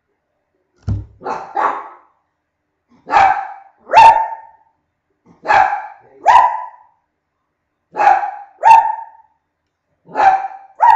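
A dog barking loudly in short barks, a quick run of three about a second in, then in pairs every two to three seconds.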